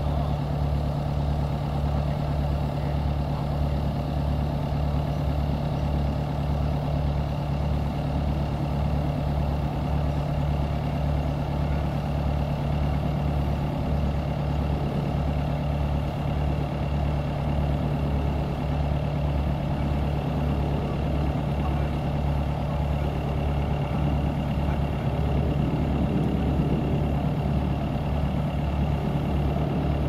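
Heavy engine of drilling equipment running steadily: a low hum over an even, pulsing throb, rising slightly in loudness near the end.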